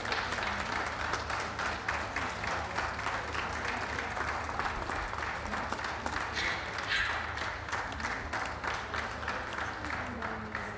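Crowd of spectators applauding, many hands clapping steadily, with a few voices mixed in.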